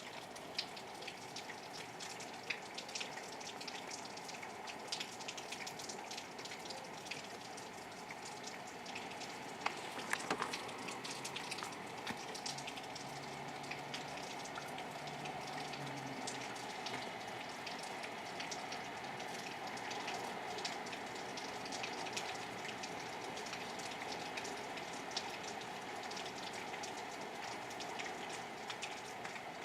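Steady rain falling, with many separate drops hitting sharply over an even hiss; a few louder hits come about ten seconds in.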